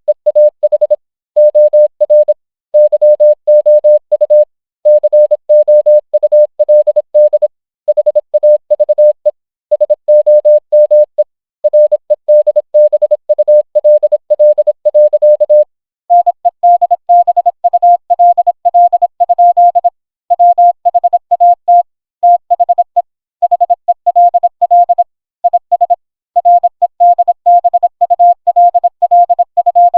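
Morse code: a single electronic beep keyed on and off in dots and dashes, standing in for the characters' spoken lines. The tone is lower for the first half, then switches to a slightly higher tone about halfway through.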